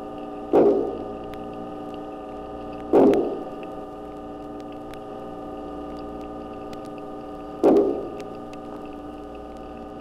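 Underwater recording of a cowfish making three loud, short, resonant knocks, about half a second in, at three seconds and near eight seconds, each dying away over about half a second. Behind them runs a steady hum with a few faint ticks.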